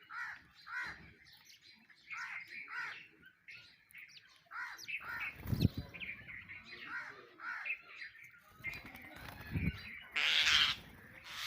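Sparrows chirping over and over in short notes, with one loud, harsh bird call near the end and two dull thumps in between.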